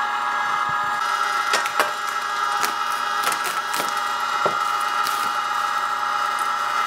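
Plastic cling wrap crackling and crinkling in irregular sharp clicks as it is pulled off the roll and wrapped tightly around a cut of meat, over the steady hum of an electric meat grinder's motor.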